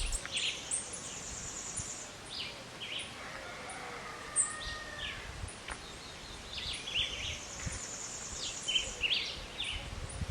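Outdoor ambience of small birds chirping, short high calls scattered throughout, with a high buzzing trill that comes in near the start and again past the middle.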